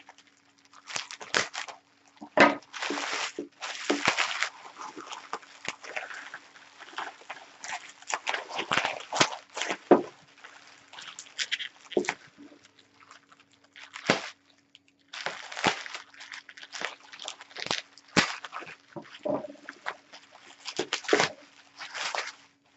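Bubble wrap and packing material crinkling and rustling in irregular crackly bursts as a wrapped item is unpacked by hand, over a faint steady hum.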